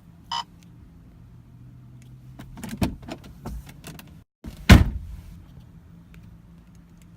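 A single short electronic beep from the car's dashboard, then a run of clicks and knocks inside the car and one loud thump about halfway through, over a faint steady low hum.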